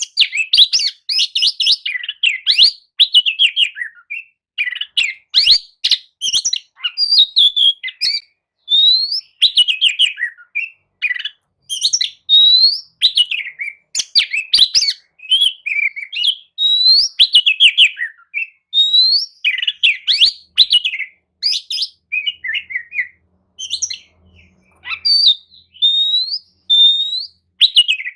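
Oriental magpie-robin (kacer) singing a loud, continuous, varied song of whistled phrases, rising whistles and fast trills with short gaps between them.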